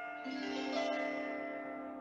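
Lap harp strings plucked, two new notes starting in the first second and ringing on over the notes before them. This is the falling 'out-breath' phrase of a breathing exercise.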